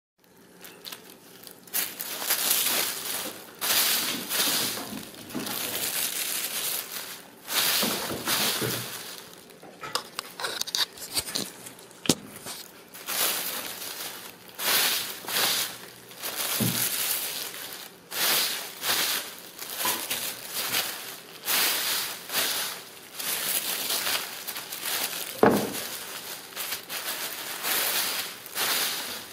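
Tissue paper and gift-wrap paper crinkling and rustling in repeated bursts, about one a second, as kittens play in it and a hand moves it, with an occasional sharp tap.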